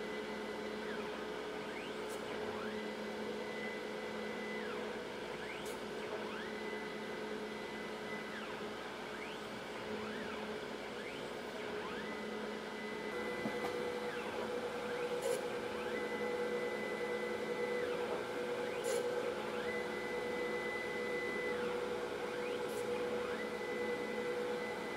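Surface grinder running with a steady motor hum while its wheel grinds a steel washer held on a magnetic chuck. A higher ringing tone comes in for a couple of seconds and drops out again about every three to four seconds as the table carries the part back and forth under the wheel. Occasional sharp clicks sound between passes.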